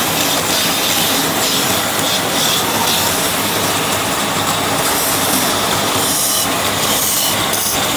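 Belt-driven wood lathe running steadily, with a hand gouge cutting into the spinning wooden spindle; the cutting comes in short, brighter hissing passes in the second half.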